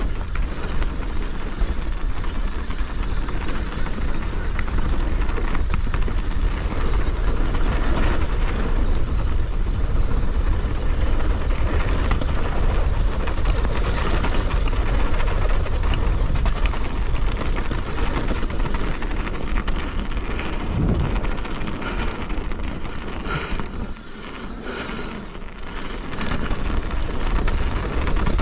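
Downhill mountain bike descending a dirt trail at speed: wind buffeting the camera microphone in a constant low rumble, with tyre noise on the dirt and small knocks and rattles from the bike over bumps. The rush drops briefly about two-thirds of the way through as the bike slows, then comes back.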